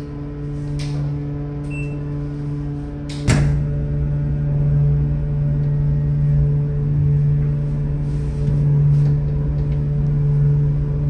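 Steady low hum of a ship's machinery on board, one deep tone with fainter overtones above it. A sharp click about three seconds in, after which the hum is a little louder.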